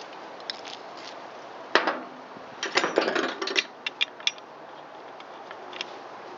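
Sharp metal clicks and clinks from a three-jaw bearing puller being tightened against a chainsaw crankshaft to draw the bearing off. One sharp click comes just under two seconds in, then a quick run of clicks for about a second, then a few scattered ticks.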